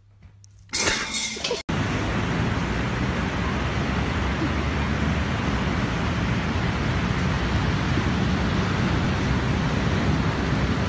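A brief burst of noise about a second in, then a steady rushing noise of ocean surf and wind on a beach.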